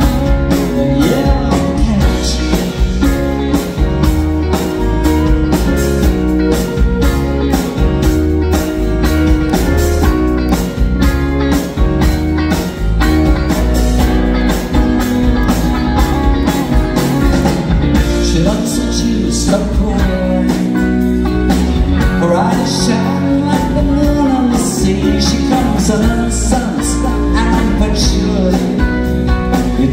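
Live soft-rock band playing an instrumental passage, with acoustic and electric guitars, bass, keyboards and a steady drum beat. From about two-thirds of the way through, a lead line with sliding notes comes in over the band, played on a flute.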